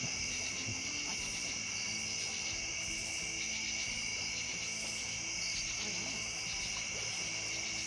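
A steady chorus of night insects, a continuous high-pitched trilling in two pitch bands that never lets up.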